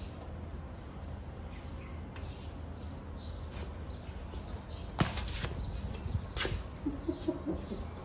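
Small birds chirping over a steady low background hum, with two sharp knocks about five and six and a half seconds in and a few lighter clicks after them.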